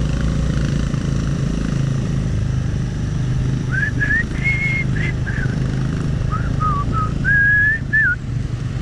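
Motorcycle engine running steadily while riding, and from about four seconds in a person whistles a short tune of held notes that glide up and down, for about four seconds.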